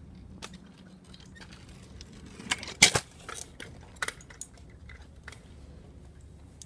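Kick scooter's hard wheels and deck clacking against concrete as it is ridden up a curb. The loudest knocks come a little before three seconds in, with lighter clicks and rattles around two and a half, four and five seconds.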